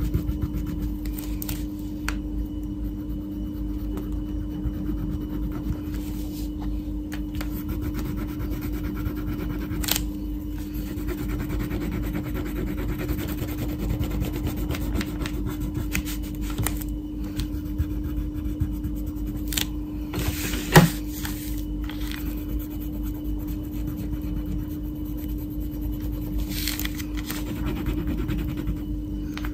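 Wax crayon rubbing and scratching on colouring-book paper as an area is shaded in with green, over a steady low hum. A sharp tap stands out about two-thirds of the way through.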